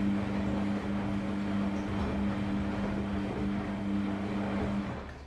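Samsung WF-R1062 front-loading washing machine running with a steady hum over a rushing noise, which stops about five seconds in.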